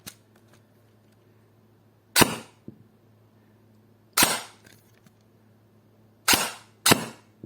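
Electric airsoft AK (E&L AEG with a Begadi CNC hop-up unit) firing single shots through a chronograph: four sharp shots about two seconds apart, the last two close together.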